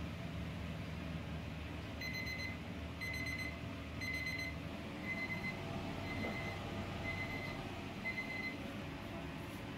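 Electronic alarm beeping: seven even, high single-pitch beeps, each about half a second long and a second apart, starting about two seconds in, over a steady low hum.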